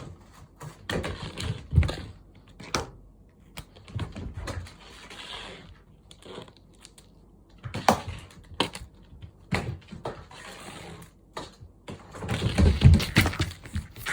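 Cats playing with a Da Bird feather wand toy: irregular clicks, rustles and knocks, with a cluster of heavier thumps near the end.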